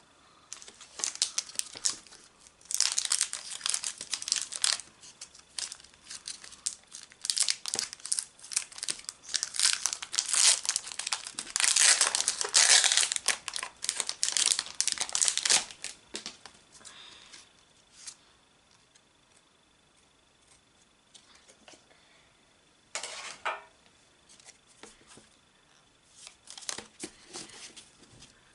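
Foil Pokémon trading card booster pack wrapper crinkling and tearing as it is opened by hand, in dense bursts through the first half. It then settles to a few brief rustles.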